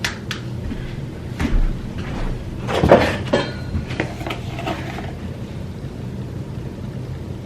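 Hard plastic clicks and knocks of a stroller cup holder being handled and fitted against the stroller frame, with a burst of rattling knocks about three seconds in. Over the last couple of seconds only a low steady hum remains.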